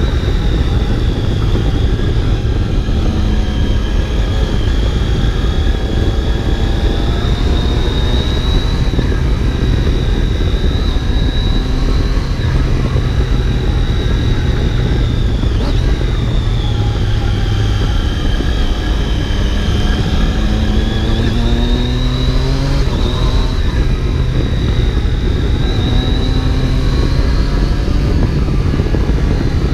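Triumph Daytona 675's inline three-cylinder engine under way, heard from the rider's seat, its pitch slowly rising and falling with the throttle over a steady, heavy rush of wind.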